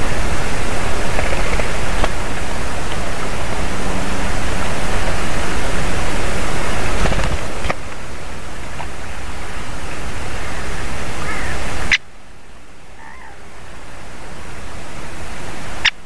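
Loud steady rushing noise on an outdoor nest-camera microphone. The noise drops abruptly in level twice, about eight and twelve seconds in, and a few faint short chirps sound near the end.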